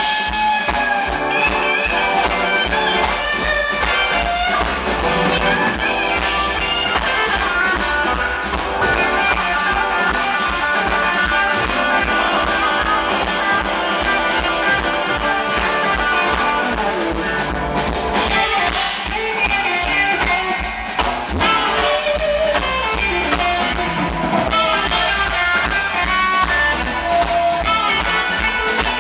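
Live blues band playing: an electric guitar leads over drums, bass and keyboards, with a saxophone in the mix.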